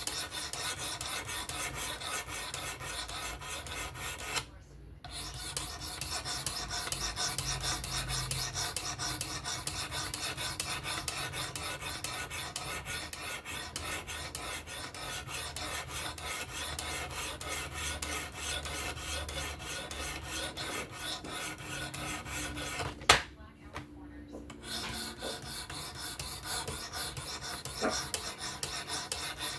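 Sharpening stone on a fixed-angle knife sharpener scraping back and forth along a steel knife edge in quick, continuous strokes. The strokes stop briefly twice, and a sharp click comes at the start of the second stop.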